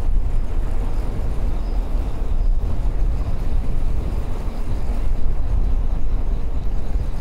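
Wind buffeting the microphone on a moving bicycle, a steady low rumble, with road noise from the ride under it.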